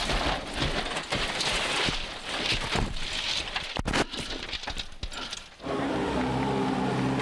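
Rally car at speed on a stage: a rough, noisy rush of engine, tyres and road with scattered knocks, briefly breaking off about four seconds in. About five and a half seconds in it changes abruptly to a steady, even engine note held at one pitch.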